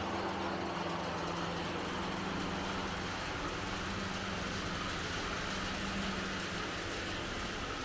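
A motor running steadily: an even mechanical hum with a constant low tone.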